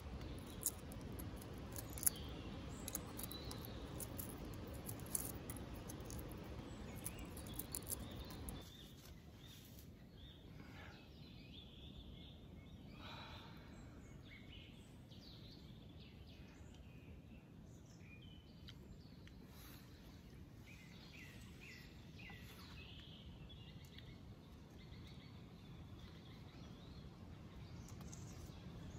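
Sharp clicks and crackles of a boiled egg's shell being cracked and peeled by hand for the first several seconds; after a sudden drop in background level, birds chirping faintly off and on.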